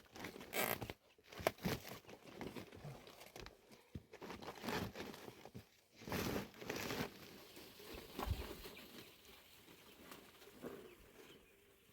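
Irregular rustling, crinkling and scraping of material being handled, with several louder bursts in the first seven seconds, then fainter.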